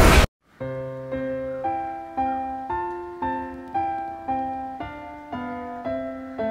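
Background keyboard music in a piano sound, striking a new chord about every half second at an even, gentle pace. A loud rushing noise cuts off right at the start, and a brief silence follows before the music begins.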